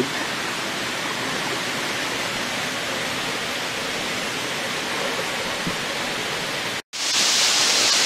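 Waterfall rushing steadily. After a brief break about seven seconds in, the rush comes back louder and hissier, as if heard closer to the falling spray.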